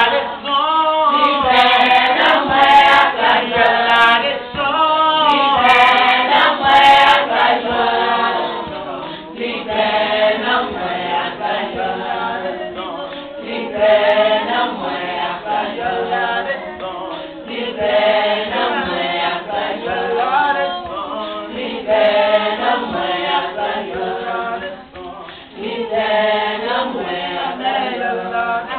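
A group of women singing a short worship chorus over and over, unaccompanied, in Haitian Creole, with hand clapping.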